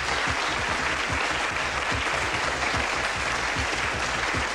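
Studio audience applauding steadily, greeting a correct answer.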